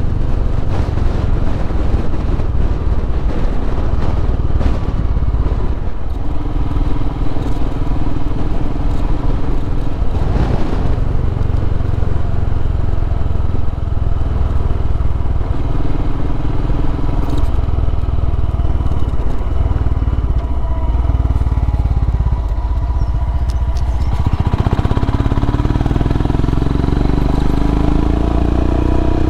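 Royal Enfield Himalayan's single-cylinder engine running under way, over a steady rumble of wind on the microphone. The engine note rises near the end as the bike speeds up.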